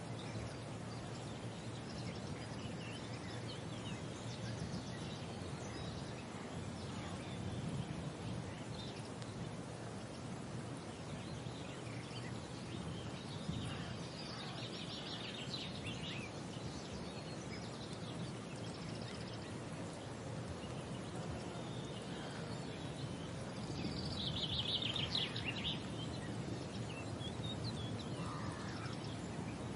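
Outdoor nature ambience: a steady low background rush with scattered bird calls, a flurry of high chirps around the middle and a louder flurry later on.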